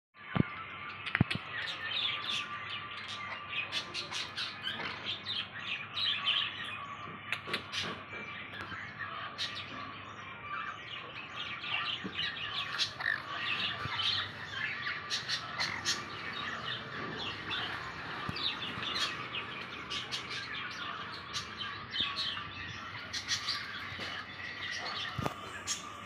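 Many caged birds chirping and squawking at once, a dense, unbroken din of short calls, with sharp clicks now and then.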